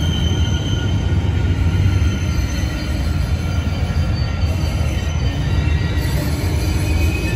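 Amtrak Superliner bilevel passenger cars rolling past close by, a steady low rumble of steel wheels on the rails.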